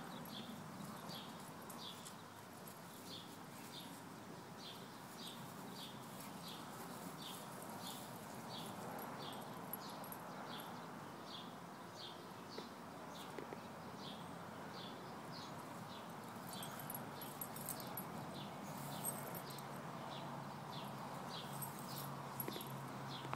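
Faint outdoor background with a bird giving short, high chirps about twice a second, evenly repeated throughout. A faint low hum comes in about three quarters of the way through, and there are a few small ticks.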